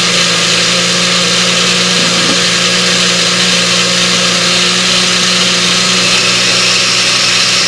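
Magic Bullet blender motor running steadily under load, its blade churning a thick mix of frozen fruit, greens and milk into a smoothie.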